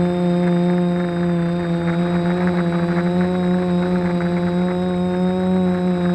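Small multirotor drone's motors and propellers humming steadily in flight, a low buzzing hum with a stack of overtones and a faint high whine, heard through the drone's own camera microphone.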